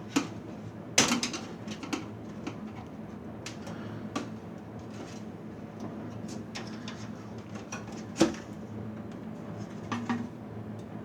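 Metal clanks and knocks from the sheet-metal chassis of a Dell PowerEdge 4300 server as a part inside is worked at and pried. The knocks are irregular, with the loudest about a second in and another near eight seconds, over a steady low hum.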